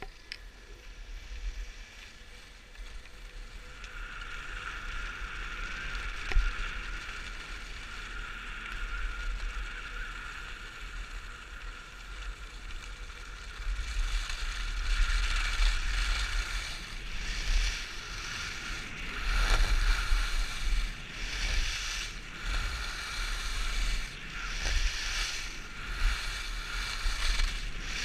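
Skis running over groomed corduroy snow: a steady hiss from the bases and edges, with wind buffeting the microphone as speed builds. From about halfway through it grows louder and swells and fades roughly once a second as the skier turns.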